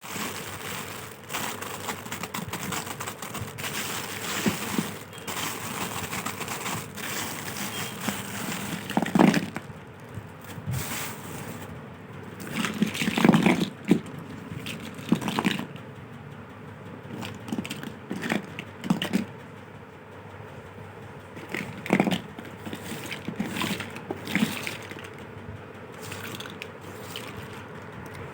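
Plastic packaging crinkling and crackling as a packet is handled and opened. This is followed by a run of separate louder rustles and knocks as it is handled.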